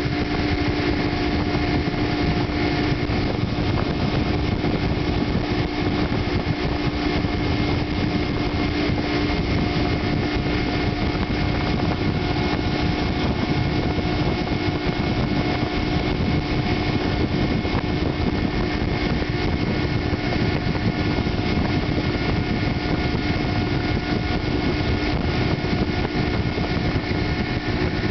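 Outboard motor on a tow boat running steadily at towing speed, a constant engine drone with a fixed-pitch hum, over a rush of wind and water.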